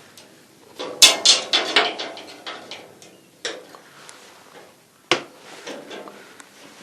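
A two-foot folding rule being handled and set against an edge: a quick run of sharp clicks and knocks about a second in, then two single knocks later.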